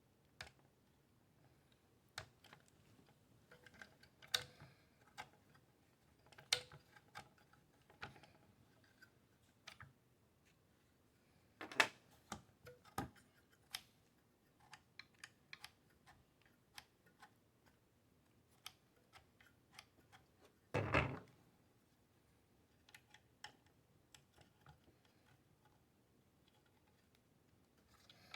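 Scattered small clicks and taps of metal parts and a small hand tool being handled while a Magpul B.A.D. lever is fitted to an AR lower receiver. About two-thirds of the way through there is one louder, longer handling noise.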